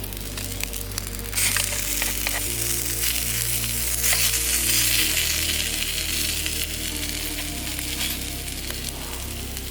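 Food sizzling in a hot pan, the hiss jumping louder about a second and a half in, with small pops. Background music with slow, changing low notes underneath.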